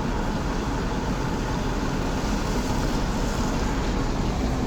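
Steady road and engine noise of a car driving, heard from inside the cabin: a constant low rumble with tyre hiss.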